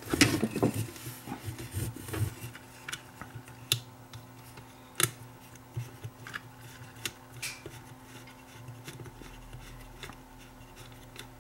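Handling noise of two opened walkie-talkies' metal chassis being shifted and rubbed on a workbench, busiest in the first second or two, then scattered light clicks and taps, over a faint steady hum.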